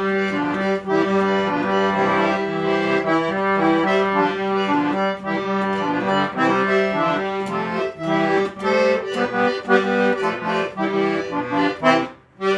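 Accordion (sanfona) playing a lively melody over held bass notes, with a brief break near the end before it sounds again.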